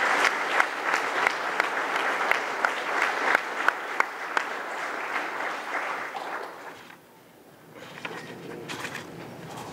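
Audience applauding, fading out about seven seconds in, then a few scattered claps.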